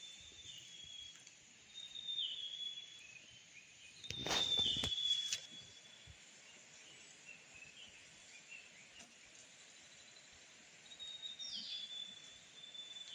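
Forest birds calling: short, high whistled notes that drop at the end, repeated every second or two and again near the end, over a steady faint hiss. About four seconds in, a brief burst of noise is the loudest sound.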